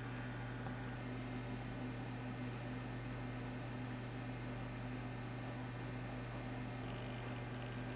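Steady electrical mains hum with a constant background hiss.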